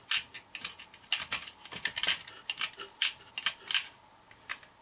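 Small ship-model fittings clicking and rattling in a clear plastic compartment box as they are picked through with tweezers: an irregular run of sharp little clicks.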